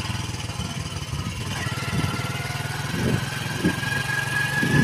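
A vehicle engine running steadily with a low, even hum while travelling over rough ground. There are a few knocks about three seconds in, and it gets louder near the end.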